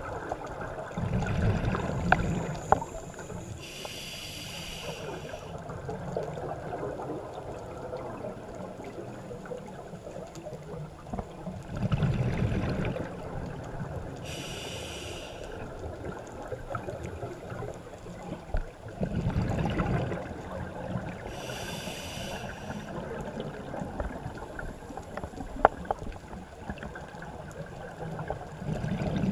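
Scuba diver breathing through a regulator underwater: three slow breaths, each a hissing inhale through the demand valve and a low bubbling rumble of exhaled air. A few sharp clicks stand out.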